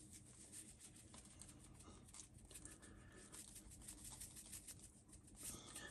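Faint patter of seasoning granules shaken from a plastic shaker bottle onto cornmeal in a plastic tub: many small, quick ticks.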